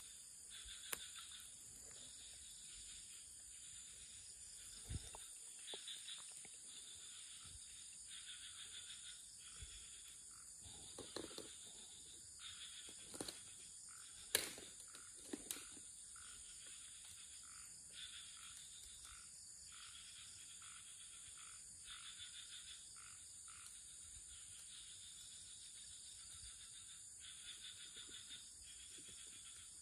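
Faint chorus of tropical insects and frogs: a steady high-pitched drone with chirping calls that come and go. A few scattered clicks and knocks, the sharpest about halfway through.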